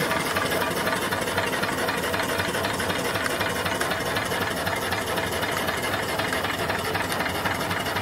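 Steam engine mounted on a vertical fire-tube boiler running steadily under its flyball governor, a fast, even mechanical clatter of the engine and its exhaust beat.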